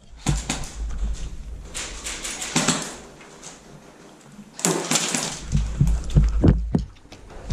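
Rustling, knocks and low thumps of a player moving with gear close to a body-worn microphone. They come in irregular clusters, busiest near the start and again from about four and a half seconds in.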